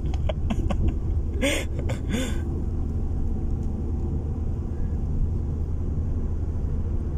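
Steady low rumble of a car's engine and tyres, heard from inside the cabin while driving. Two short noises come about one and a half and two seconds in.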